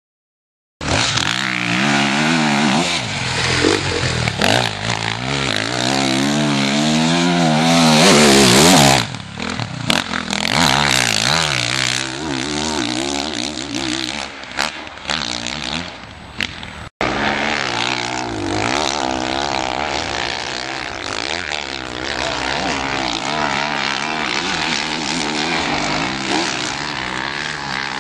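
Motocross dirt bike engines revving up and down repeatedly as the bikes ride the track and jump. The sound starts about a second in, is loudest about eight seconds in, then drops away suddenly; it cuts out for an instant around seventeen seconds.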